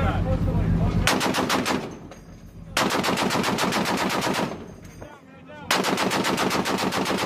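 M2 .50-caliber heavy machine gun firing three bursts of automatic fire, a short one about a second in and two longer ones of a second and a half or more, each a rapid even string of shots at roughly eight to ten a second.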